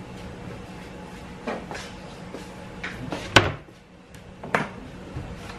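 A scatter of sharp knocks and clatters, like cupboard doors and kitchenware being handled, the loudest about three and a half seconds in, over a steady low hum.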